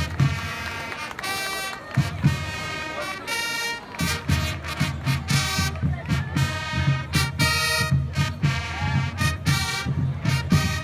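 Landsknecht fife-and-drum band playing a march: high fifes carry the tune over the beat of large field drums, and the drumming gets denser and more regular about four seconds in.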